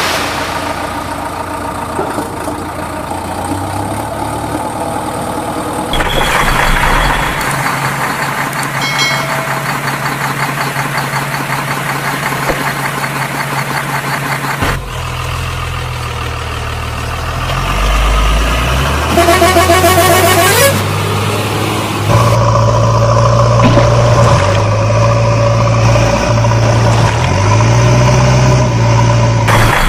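Truck engine sounds, running and idling, that change abruptly every several seconds, with a short sound rising in pitch about two-thirds of the way through.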